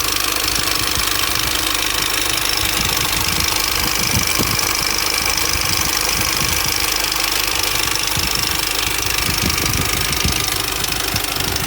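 A Mini Cooper S R53's supercharged 1.6-litre four-cylinder engine idling steadily with an irregular rattling knock from the timing chain. The owner takes it for an established chain noise and believes the chain has already jumped, with the front chain guide possibly broken.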